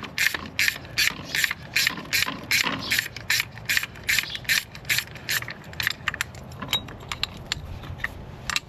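Hand ratchet wrench clicking steadily as it backs out a freshly freed, corroded anode bolt on a boat's outdrive, about three clicks a second. The clicks grow sparser and fainter about two-thirds of the way through.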